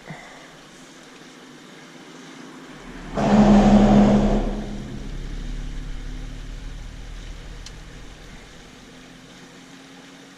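A car going past, loudest from about three to four and a half seconds in, then fading away over the next few seconds.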